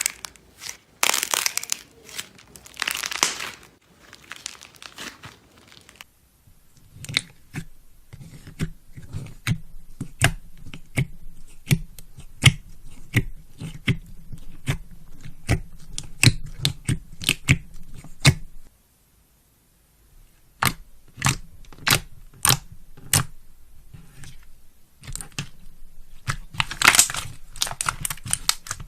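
Slime worked by hand: crinkly crunching at the start, then a long run of sharp clicking pops as it is pressed and stretched. The sound breaks off briefly about two-thirds in, and crinkling returns near the end.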